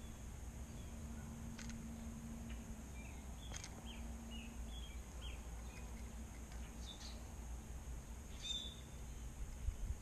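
Quiet outdoor ambience: a low steady rumble with a faint steady hum, and scattered short bird chirps through the middle. A few low thumps come near the end.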